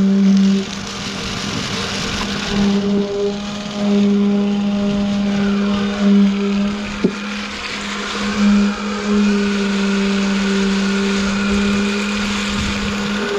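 A motor running steadily with a constant low hum that dips slightly now and then, and a single sharp click about seven seconds in.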